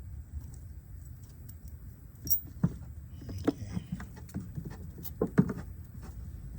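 Small metal parts being handled and fitted by hand: a scattering of light clicks and clinks, the loudest about two and a half and five seconds in.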